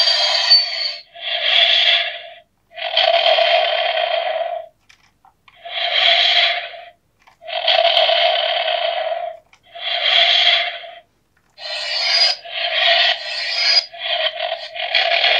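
Jazwares Micro Galaxy Squadron electronic Millennium Falcon toy playing its motion-activated sound effects through its built-in speaker as it is tipped and rocked. The sound comes as a string of separate bursts, each a second or two long with short pauses between, coming quicker and choppier near the end.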